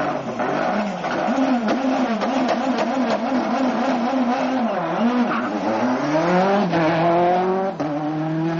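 Hyundai Accent WRC rally car's turbocharged four-cylinder engine held on the revs at the start line, the revs swinging up and down about twice a second. About five seconds in it launches, the revs climbing steeply and dropping back at upshifts near seven and eight seconds.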